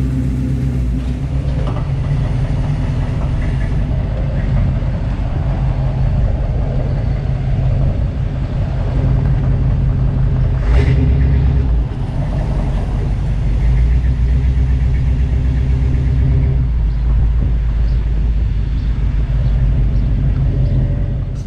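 A 1971 Chevrolet C10's V8 running through its dual exhaust with Flowmaster-style mufflers as the truck drives off, getting louder as it speeds up about thirteen seconds in. A sharp knock about eleven seconds in.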